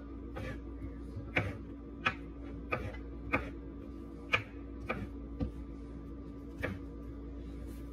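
Small kitchen knife slicing mushrooms on a wooden cutting board, the blade knocking on the board at each stroke in an irregular chopping rhythm of about one knock every half second to a second.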